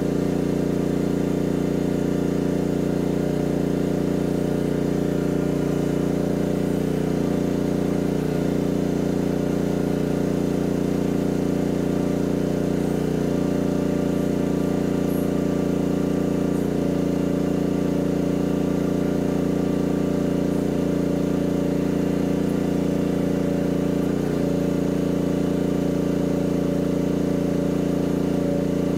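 Mini excavator engine running at a steady speed, with an even, unchanging tone, as the machine tracks over to a new digging spot.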